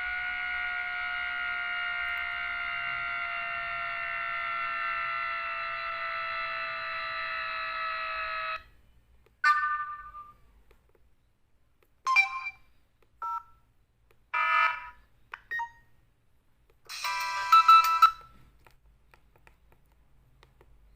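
Samsung SCH-F309 phone's loudspeaker playing built-in alert sounds: a long electronic tone rich in overtones, sliding slowly lower in pitch, cuts off after about nine seconds. A string of short electronic beeps and chirps follows, and the loudest comes near the end.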